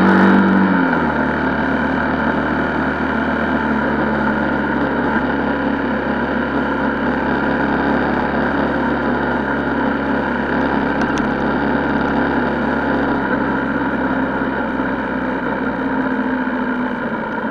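Honda XR125L's single-cylinder engine running while the motorcycle is ridden. The engine note drops about a second in, then holds steady.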